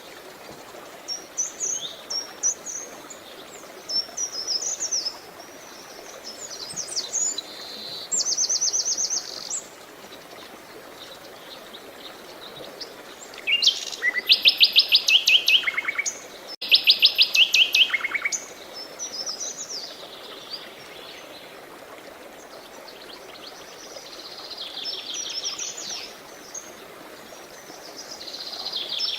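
Songbirds singing in short, separate phrases, with two loud, rapid trills about halfway through. Under them is a steady rush of flowing water.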